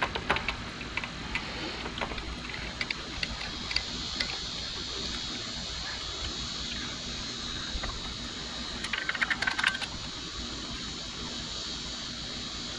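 Small metallic clicks and taps of bolts being threaded by hand into a new accessory-belt tensioner on a Mazda 3 engine, with a quick run of rattling clicks about nine seconds in.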